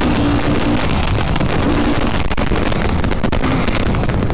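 Yamaha YFZ sport quad's single-cylinder four-stroke engine running while being ridden, with heavy wind buffeting on the onboard microphone.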